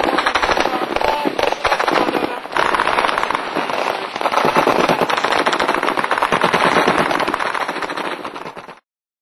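Sustained automatic machine-gun fire, shots coming so fast they run together, with a brief lull about two and a half seconds in; it cuts off suddenly near the end.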